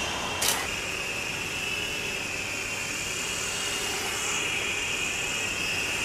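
Homemade remote-control helicopter's small electric motor and rotor running, a steady high-pitched whine with airy rush. A sharp click about half a second in.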